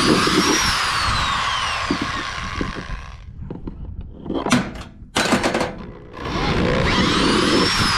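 Electric drill boring through the thick plastic wall of a cooler with a long bit, its motor whine rising then falling in pitch as the bit bites. It stops about three seconds in, with a few knocks while the bit is cleared of plastic shavings, and starts drilling again about six seconds in.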